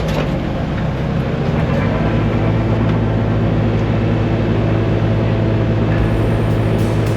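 Engine of heavy demolition machinery running under load. Its low, steady note rises a step about two seconds in and then holds.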